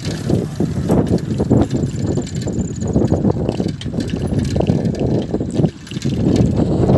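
Wind buffeting the microphone of a camera carried by someone on the move: a loud, uneven low rumble that dips briefly near the end.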